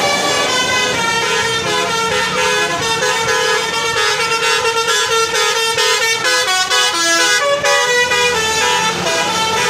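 Basuri multi-tone air horns playing a tune, with several held horn notes stepping up and down in pitch and overlapping.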